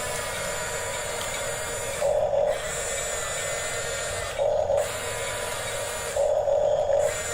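A Huina 1554 RC bulldozer's small electric motors and gearboxes whirring steadily with a thin high whine. Three times, about two, four and a half and six seconds in, a louder, lower whine cuts in for half a second to a second.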